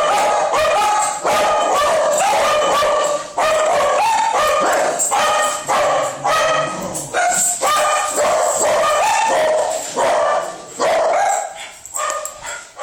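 Dogs alert-barking at the mail carrier, rapid barks following one another almost without pause, then thinning out to scattered barks near the end.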